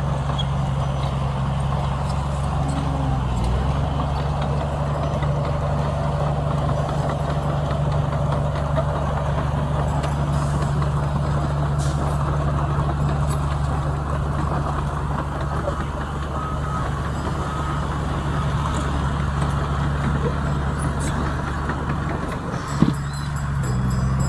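Heavy diesel engine of earthmoving equipment running steadily, with one sharp knock near the end.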